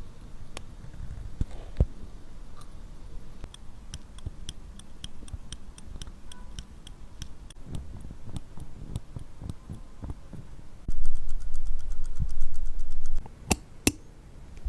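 Small mechanical clicks and ticks from work on a mechanical wristwatch. A regular run of light ticks is followed by a louder stretch of rapid ticking over a low rumble, with light handling knocks between. Two sharp clicks come near the end.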